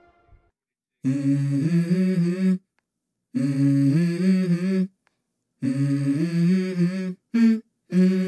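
Background music: a single voice humming a slow melody in three phrases of stepped, held notes, with short silences between them and two brief notes near the end.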